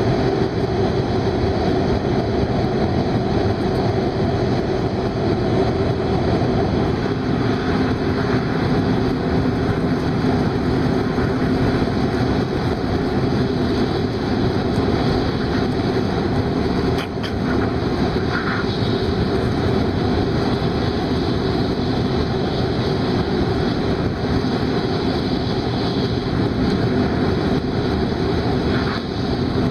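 Steady running noise of a Hokuriku Shinkansen train at speed, heard from inside the passenger cabin, with a single brief click a little past the middle.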